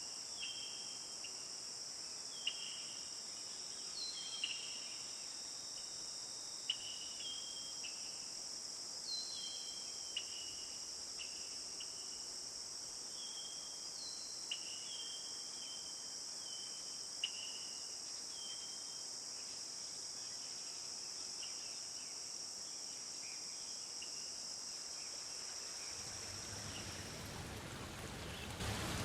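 Steady, high-pitched insect chorus, with short, falling chirps repeating every second or so through most of it and a few sharp clicks. Running water fades in near the end.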